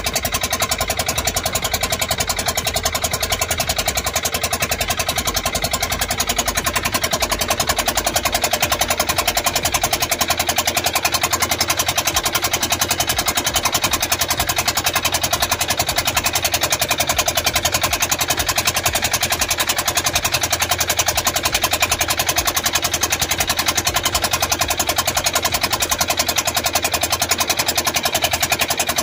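Inboard engine of a motorized outrigger boat (bangka) running steadily under way, a fast, even engine beat.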